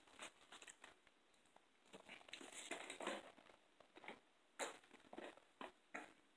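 Faint eating and drinking sounds: soft crinkles and clicks from cups and food handling, with a longer stretch of sipping from drinks about two to three seconds in.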